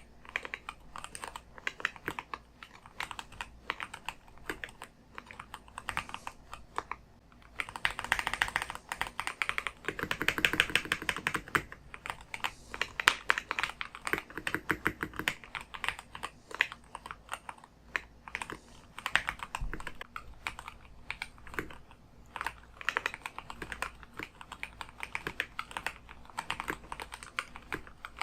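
Typing on a Keychron K2 HE keyboard with Gateron double-rail magnetic Hall-effect switches: a steady patter of keystrokes that grows faster and denser for several seconds in the middle before easing back to a more uneven rhythm.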